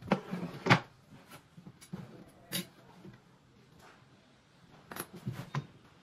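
Pallet-wood boards knocked and set down on a wooden workbench top: a cluster of knocks in the first second, the loudest of them, another knock about two and a half seconds in, and a few more around five seconds.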